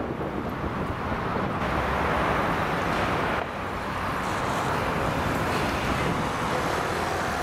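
Steady urban road-traffic noise, a continuous rushing hum of cars, with sudden shifts in its tone about a second and a half in and again about three and a half seconds in.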